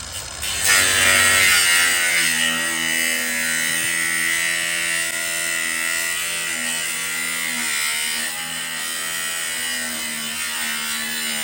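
Battery-powered power tool running under load on a fresh battery: a steady motor whine with cutting noise over it, the pitch sagging a little now and then. It starts about half a second in.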